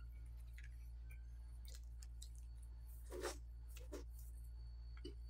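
Faint eating sounds of people eating with their hands: a few soft mouth smacks and chewing clicks, the clearest about three seconds in, over a steady low hum.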